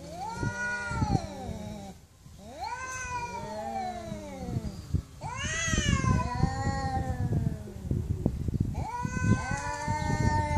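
Tabby cats yowling at each other in an angry face-off: a series of long, wavering yowls, each about two seconds, rising and falling in pitch, one after another about every three seconds.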